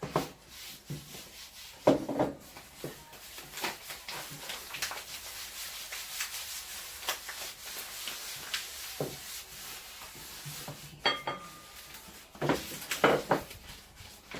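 A rolling pin rolling and rubbing fresh egg pasta dough out on a board, with irregular scraping and a few knocks. The knocks cluster near the end.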